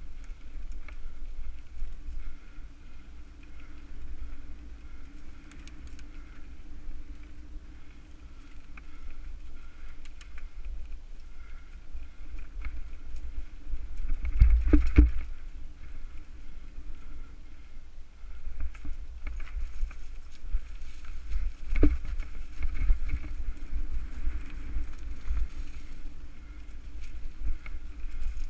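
Mountain bike being ridden down a dirt singletrack, picked up by a bike-ridden GoPro 3: a steady low rumble of tyres on dirt and wind against the camera, with the bike rattling. There are two heavy knocks from the bike jolting over bumps, one about halfway through and another some seven seconds later.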